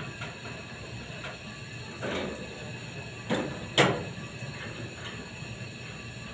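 Steady hiss of a liquid oxygen transfer from a tanker trailer, broken by three sharp metallic knocks about two, three and a bit, and four seconds in, the last the loudest.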